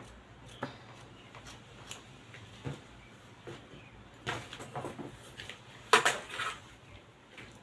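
Scissors snipping through fabric with small, scattered clicks, then the cut fabric pieces being handled on the table with a few sharper clicks and knocks, the loudest about six seconds in.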